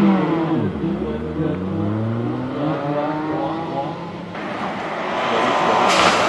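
Rally car engine revving hard out of a hairpin, its pitch dipping and then climbing steadily as it accelerates away. About four seconds in the sound changes abruptly, and another car's engine grows louder near the end.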